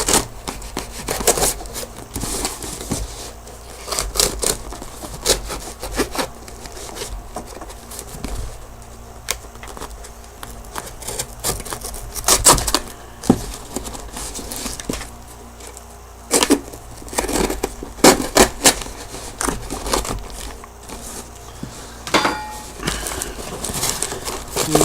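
A shipping package being torn open by hand: irregular scraping, tearing and crackling of the packaging, with sharp clicks and rustles coming in uneven bursts.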